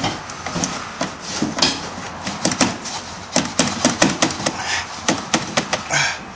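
Rapid, irregular metal knocks and clanks on a steel exhaust pipe as it is struck and worked to break it loose from a seized, tack-welded clamp joint.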